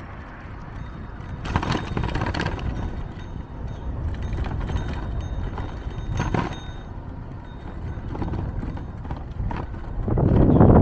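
Street sounds heard from a moving bicycle: a low rumble with rattles and clicks, strongest about two seconds in and again a little past six seconds, and wind buffeting the microphone rising sharply near the end.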